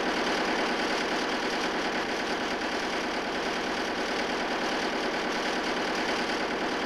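Large engine running steadily in a machinery room, a dense, even mechanical clatter with a faint steady whine above it.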